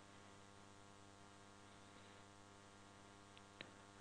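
Near silence: a faint steady electrical hum, with one small click near the end.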